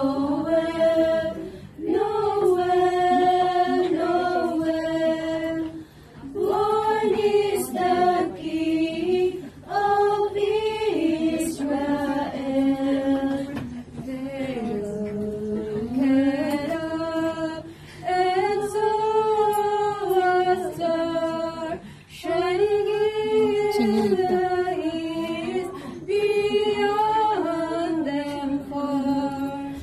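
A small choir of women singing together in phrases of held notes, with short breaks between phrases about every four seconds.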